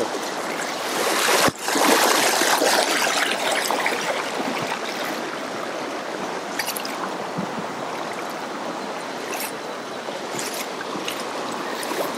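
Steady rush of river rapids, water running fast over rocks, with a brief drop-out about a second and a half in.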